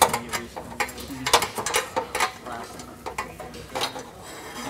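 Metal hand tools clinking and clicking against the exhaust hardware under a car, a string of sharp, irregular knocks as a wrench and socket work the exhaust header bolts.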